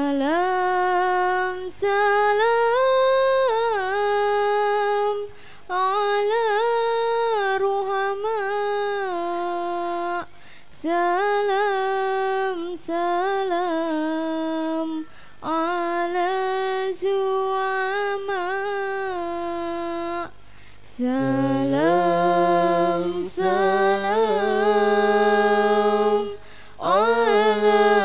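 A young woman chanting solo in Arabic into a microphone. She holds long notes with wavering, ornamented turns in phrases a few seconds long, each separated by a brief breath. In the last quarter a lower held tone sounds beneath her voice.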